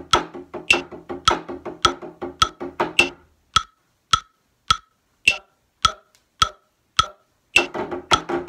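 Marching tenor drums played with sticks against a metronome clicking at 105 bpm: a rudiment pattern of taps and buzz strokes until about three seconds in, then several beats of the metronome clicking alone, before the drumming starts again near the end.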